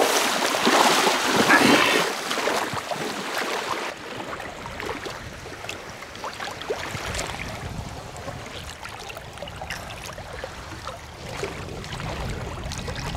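Shallow seawater splashing as a large tiger shark is hauled by the tail back into the surf, loudest for the first few seconds, then settling into a quieter wash of surf.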